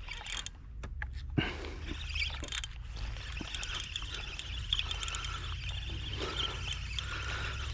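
Fishing reel being cranked, a continuous mechanical whir with fine clicking.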